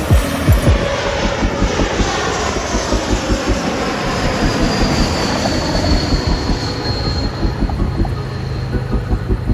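Air Canada Airbus A220-300 passing overhead, its Pratt & Whitney PW1500G turbofans giving a loud, steady jet noise with a high whine that falls slowly in pitch as it goes by. Heavy wind noise buffets the microphone.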